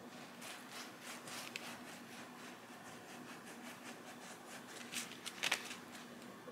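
Pastry brush spreading egg wash over hoagie rolls on a baking pan: faint soft strokes and light ticks, with a few louder clicks about five seconds in.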